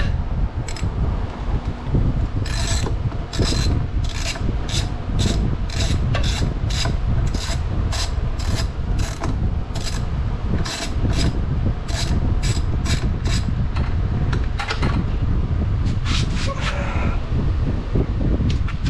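Socket ratchet wrench being worked on a bolt, each stroke a short rasp of clicks, about two a second. The strokes pause about two thirds of the way through and a few more come near the end, over a steady low background hum.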